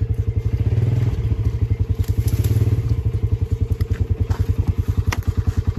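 A vehicle engine idling with an even, rapid pulse of about ten beats a second, with a few light clicks over it near the end.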